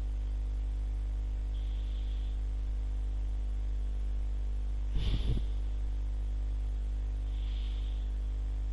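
Steady low electrical hum in the recording, with one short breath close to the microphone about five seconds in.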